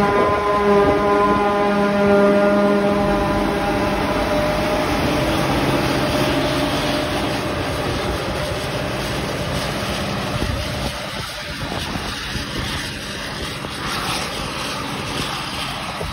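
Claas Jaguar 950 forage harvester chopping grass for silage: a steady machine hum with a rushing sound under it. The hum's tones fade after a few seconds and the whole sound grows gradually quieter as the machine draws away.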